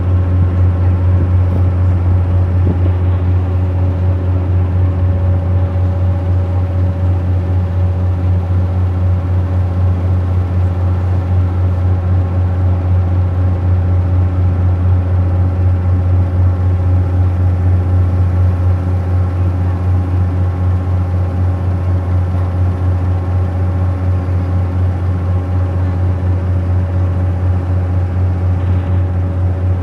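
River cruise boat's engine running steadily under way: a loud, even low drone with several steady tones above it.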